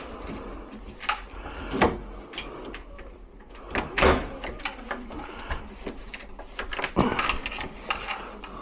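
A door and its lock hardware being handled: scattered clicks and knocks, the loudest about two and four seconds in, with another near seven seconds.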